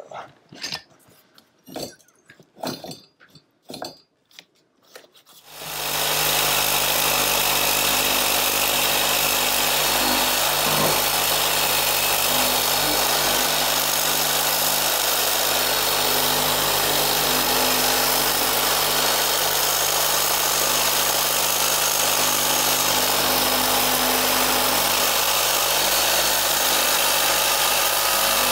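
A few scattered clicks and knocks. About five seconds in, a Milwaukee Fuel compact reciprocating saw starts and runs steadily, its blade sawing through the pipe at a steam convector's radiator valve.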